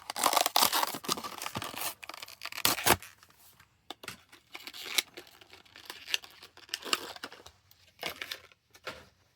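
A diecast car's card-and-blister package being opened by hand: card and plastic tearing and crinkling for about the first three seconds, then scattered clicks and short rustles.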